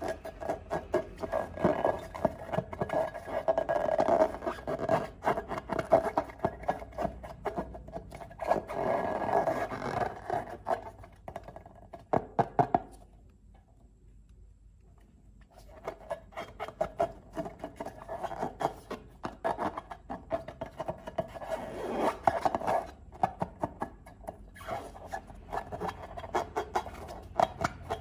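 Slime being mixed and worked, a dense run of small scraping, rubbing and clicking sounds. It stops for about two seconds just before the middle, then carries on.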